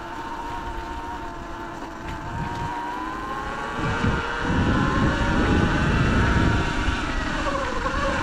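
Sur-Ron Light Bee X electric dirt bike's motor and drivetrain whining while riding, the pitch rising and falling with speed. A low rumble of wind on the microphone grows louder about halfway through.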